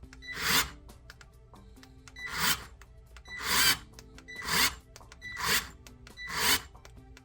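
Worx WX240L 4V cordless screwdriver running in reverse in six short bursts about a second apart, each swelling and then cutting off. It strains against a screw in a piece of wood and fails to back it out: the small screwdriver lacks the torque for the job.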